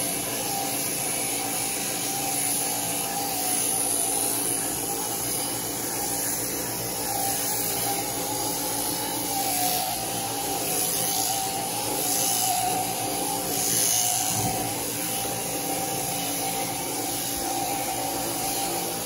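Sheep-shearing handpiece running steadily as it clips through a ram's fleece: a continuous mechanical buzz with a hum that wavers slightly in pitch.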